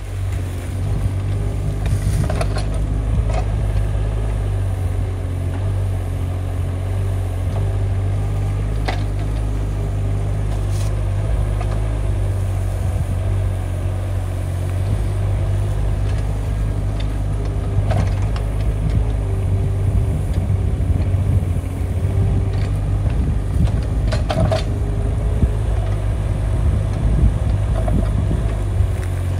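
Mini excavator's Kubota D902 three-cylinder diesel running steadily under hydraulic load while the boom and bucket dig soil, with a few short sharp knocks now and then.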